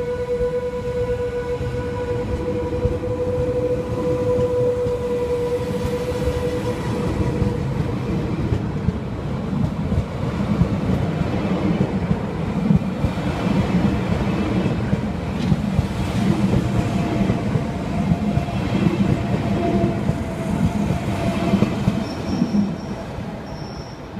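SBB RABDe 500 ICN tilting electric train pulling out and passing close by. A steady whine with overtones fades over the first seven seconds or so. Then the rumble and clatter of the wheels on the rails grows as the carriages go past, with two short high squeals near the end before the sound drops away.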